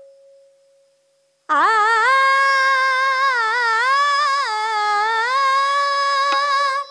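A woman singing a long wordless opening phrase (alaap) of a Marathi devotional song to Vitthal, her pitch gliding and wavering. She comes in about one and a half seconds in, after a faint held note dies away, and sustains the phrase through to the end.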